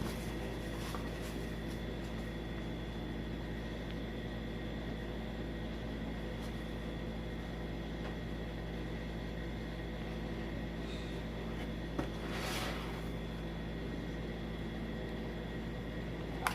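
Steady mechanical hum with several constant tones, like a fan or appliance running in the room. A sharp click about twelve seconds in is followed by a brief rustle.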